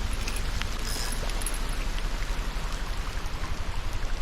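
Steady rush of river water, with low rumbling flutter on the microphone.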